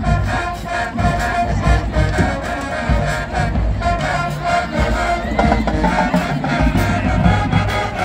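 High school marching band playing while marching: brass and sousaphones sounding loud chords over drums keeping a steady beat.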